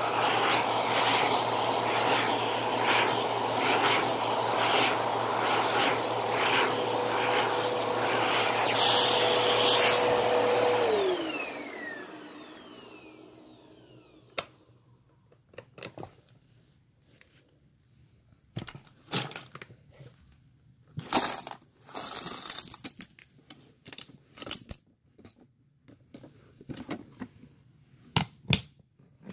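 Upright bagless vacuum cleaner running with coins rattling into its plastic dust bin; about eleven seconds in the motor is switched off and winds down with a falling whine. Afterwards, scattered plastic knocks and coin clinks as the coin-filled bin is handled and opened.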